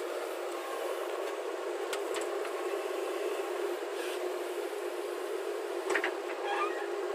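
JCB 3DX backhoe loader's diesel engine running steadily while loading soil, with a few sharp knocks about two, four and six seconds in.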